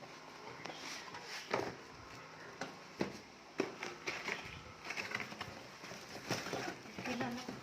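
Scattered light clicks and taps of objects and packaging being handled, spaced irregularly with a few sharper knocks.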